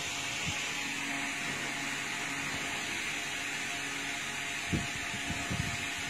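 Steady background hiss with a faint hum, like a running room fan, broken by a few soft low knocks near the end.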